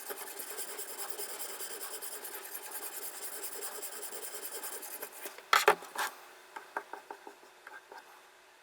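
A sharpening stone on a guided knife sharpener rubbing back and forth along a knife blade in quick, even rasping strokes. About five seconds in the strokes stop, followed by a few loud knocks and then some light clicks.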